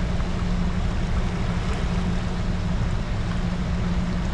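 Steady rush and low rumble of fast river water churning out below a dam spillway.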